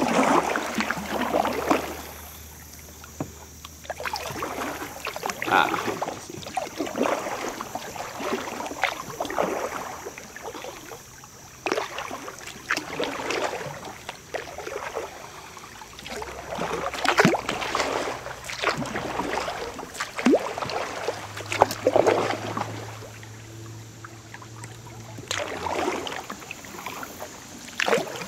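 Kayak paddle blades dipping and splashing in river water, stroke after stroke about once a second, with a few short pauses between runs of strokes.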